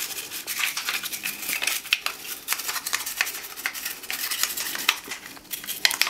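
Toothbrush scrubbing a wet plastic part of a Dyson V6 vacuum's cyclone: quick, scratchy brush strokes, one after another.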